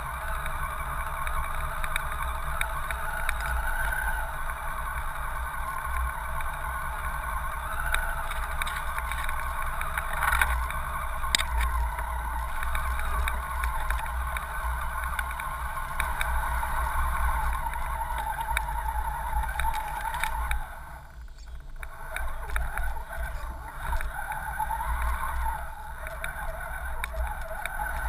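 Electric motor and gear whine of an Axial SCX10 RC crawler, picked up by a camera mounted on the truck as it drives through shallow floodwater and wet leaves, over a steady low rumble. The whine wavers in pitch and drops away briefly about three-quarters of the way through.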